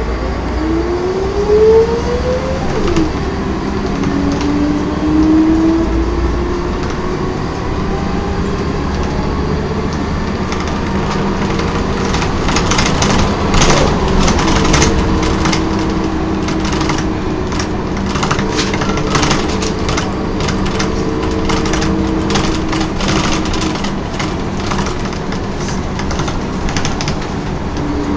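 Inside a Volvo B10M bus, the ZF automatic gearbox whines. The whine rises in pitch a couple of times early on as the bus pulls away, then holds steady with the drone of the diesel running underneath. From about halfway through, many short clicks and rattles join in.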